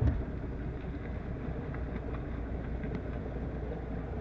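Wind rumbling on the microphone over rushing water, recorded from a boat under way beside racing yachts, steady throughout. A brief thump right at the start.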